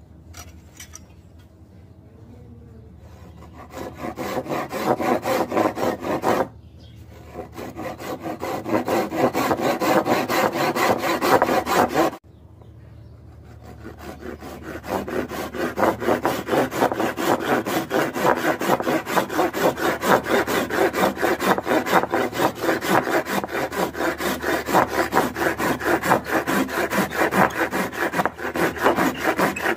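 Fine-toothed saw blade cutting through a small block of wood by hand, in quick, even back-and-forth strokes. The sawing starts a few seconds in and breaks off briefly twice before running on steadily.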